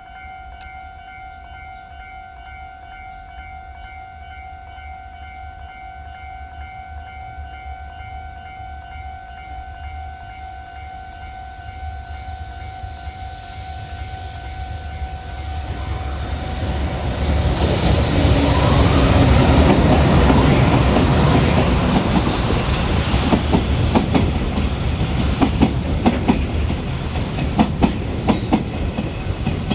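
A level-crossing warning bell rings with a steady tone while a train approaches. A JR Freight EH500 electric locomotive hauling a container train then passes close by, swelling to a loud rush a little past halfway. After that comes the rhythmic clickety-clack of container wagons' wheels over the rail joints.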